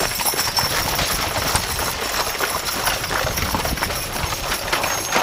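A team of horses pulling a wooden stagecoach at a walk on a dirt road: a dense run of hoof clip-clops with knocks and rattles from the coach's spoked wheels rolling over the ground.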